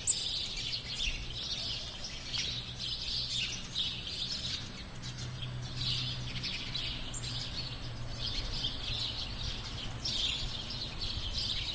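Woodland birdsong: several small birds chirping and singing continuously, with a faint steady low hum underneath.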